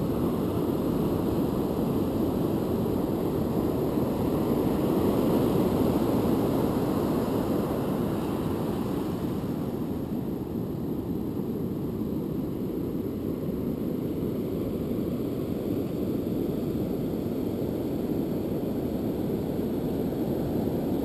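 Steady roar of ocean surf on the beach, mixed with wind on the microphone; it swells about four to seven seconds in and eases a little afterwards.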